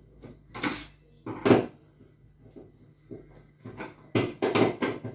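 Several short knocks and clatters: two about half a second apart early on, the loudest about a second and a half in, and a quick cluster of three or four near the end, over a faint low steady hum.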